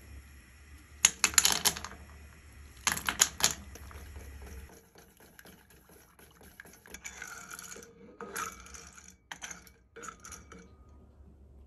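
Two short bursts of sharp, clattering clicks, then softer scraping and tapping of chopsticks and a plastic ladle against a saucepan as miso is dissolved into clam soup.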